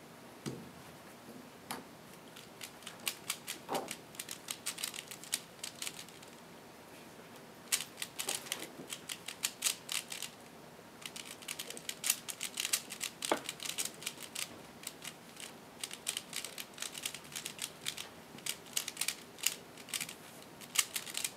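3x3 Rubik's cube being turned fast by hand during a blindfolded solve: bursts of rapid plastic clicking and clacking, separated by short pauses as each sequence of moves is executed.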